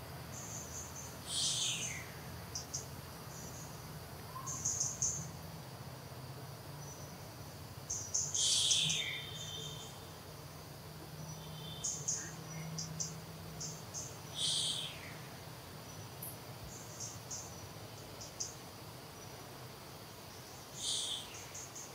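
Forest insects chirping in short high bursts, with a shrill call that falls steeply in pitch repeated four times, about every six seconds, over a low steady hum.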